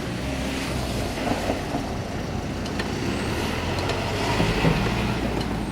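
A motor vehicle's engine running with a steady low rumble, with a few light clicks over it.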